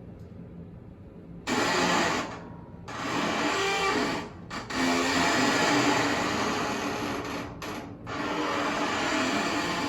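A dishwasher being worked to make noise: long, noisy mechanical stretches, the first starting about a second and a half in, broken by short gaps, over a steady low hum.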